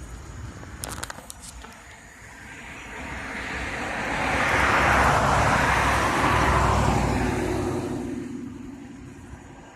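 A car passing by: its tyre and engine noise swells over a few seconds and then fades away. A few short clicks come about a second in.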